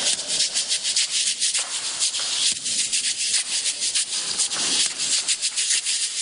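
Washboard (rubboard) scraped by hand in a quick, even rhythm of scratchy strokes, played solo as a percussion break.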